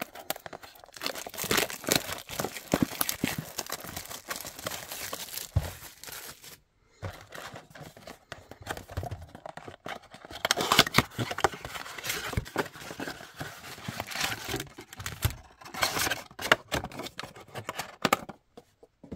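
A trading-card blaster box of 2023 Panini Absolute Football being torn open by hand and its card packs pulled out and handled: rapid crinkling and tearing of wrapper and cardboard, with a short break about six seconds in.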